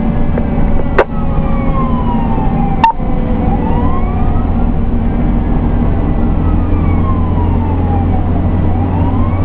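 Fire engine siren wailing slowly up and down, about one rise and fall every five to six seconds, over the steady low drone of the Pierce Enforcer fire engine's engine and road noise heard inside the cab. Two sharp clicks about one and three seconds in.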